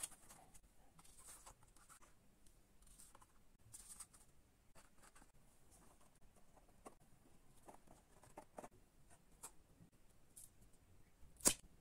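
Faint rustling, scraping and light taps of hands handling cardboard and paper, with one sharp click near the end.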